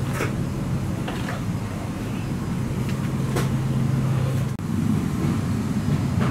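Steady low hum of an Airbus A330-200's cabin on the ground, with a few faint knocks. The hum's tone changes about two-thirds of the way through.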